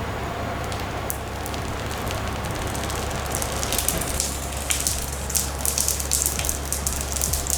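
Protective plastic film being peeled off a PC case's glass panel: a crackle that starts sparse and turns into dense crackling about three seconds in.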